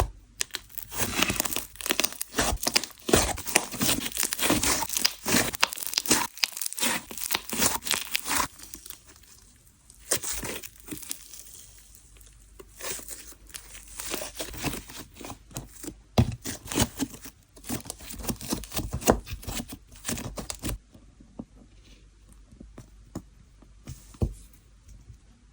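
Sand-texture slime being squished and stretched by hand, making gritty crackling and tearing sounds. The crackling is dense for about the first eight seconds, then comes in sparser bursts, and dies down a few seconds before the end.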